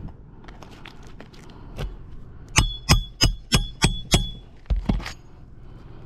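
A hammer striking a roofing nail: six quick ringing metallic blows about a third of a second apart, then two lighter knocks.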